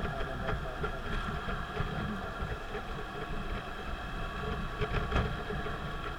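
Car driving on an expressway: a steady low road and engine rumble with a steady hum, and a few light clicks or knocks, the sharpest about five seconds in.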